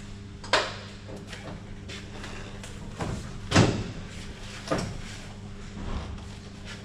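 Several hard knocks and clunks of steel side-step brackets and hardware being handled and offered up against a ute's chassis, the loudest about three and a half seconds in, over a steady low hum.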